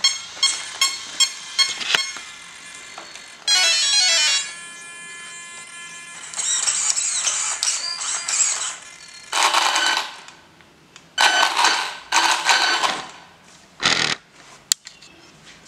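Electronic beeps and tones from the RC truck's brushless ESC as its electronics are powered up: a quick run of short beeps at the start, a falling tone a few seconds in, then several longer bursts of tones.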